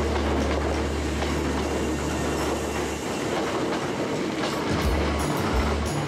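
Hankyu 'Kyo-train Garaku' electric train moving slowly along the platform. A steady low hum from the running gear drops away about three seconds in, and near the end the wheels begin to clack over the rail joints.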